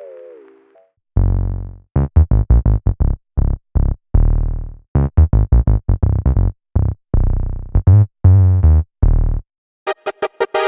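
Omnisphere "Golden Era Bass" synth bass patch played from a keyboard: a run of short, deep bass notes, each dying away quickly. It follows the fading end of a chime patch, and near the end a stuttering, glitchy saw-synth patch starts with rapid clicks.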